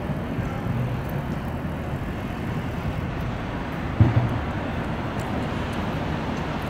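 Steady low rumble of city background noise, with one short dull thump about four seconds in.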